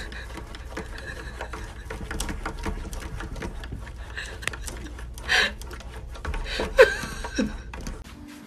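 Rapid light tapping of a cat's paws against window glass, with a couple of louder, sharper sounds about five and seven seconds in.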